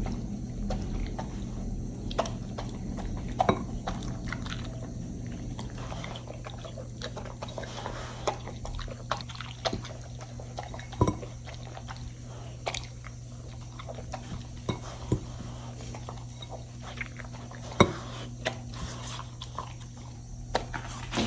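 Kitchen food preparation: scattered sharp clicks and taps of utensils against dishes, with liquid being poured and dripping, over a steady low hum. The loudest tap comes near the end.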